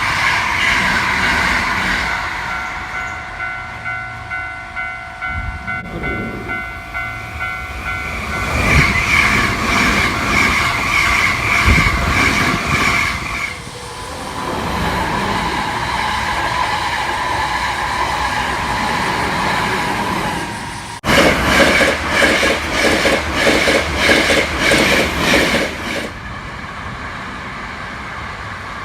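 Japanese level-crossing warning bell ringing in rapid, repeated clangs while Hankyu electric trains pass, their wheels clattering over the rail joints, and a train horn sounds. The loudest stretch is a few seconds of regular clatter near the end, which then drops away suddenly.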